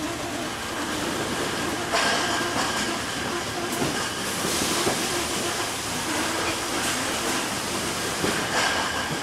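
Brewery packing-line machinery running: conveyors carrying beer cartons make a steady rattling clatter, with occasional sharper clacks, the loudest about two seconds in.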